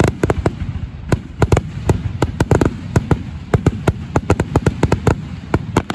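Aerial fireworks display: shells bursting in a rapid, irregular string of sharp bangs and cracks, several a second, over a low rumble.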